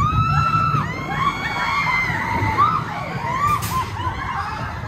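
Riders screaming and whooping aboard the Big Thunder Mountain Railroad mine-train coaster: a few long held screams, then many short cries, over the low rumble of the train on its track. A brief sharp noise cuts in about three and a half seconds in.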